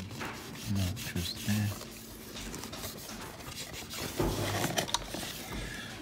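Rubbing and scraping handling noise close to the microphone, as hands and objects brush against it. A couple of short low vocal hums come about a second in.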